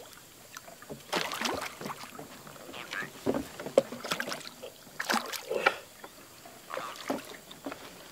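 Hooked baung catfish thrashing and splashing at the water's surface in irregular bursts as it is reeled in.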